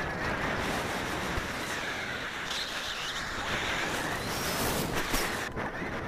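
Wind rushing over the microphone of a camera carried on a falcon in fast flight: a steady, even hiss with no let-up.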